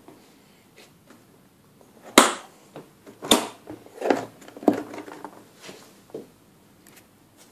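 A portable record player's case being opened: sharp clicks and knocks as the catch and lid are worked, the loudest about two seconds in and another about a second later, then a run of lighter knocks and clatter as the lid comes off.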